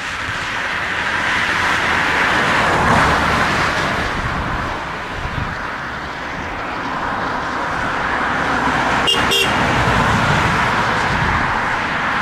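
Airbus A340-300's four CFM56 turbofan engines running as the airliner taxis and turns on the runway, a steady jet noise that swells and eases. Two short high calls cut through about nine seconds in.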